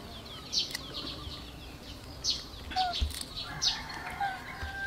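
Small birds chirping: a scattering of short, high, falling chirps, with a few held whistled notes in the second half.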